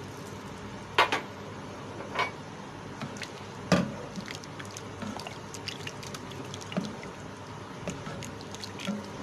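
A spoon stirring thin, watery sauce in a pan: liquid sloshing over a steady hiss, with scattered short knocks and clicks as the spoon meets the pan.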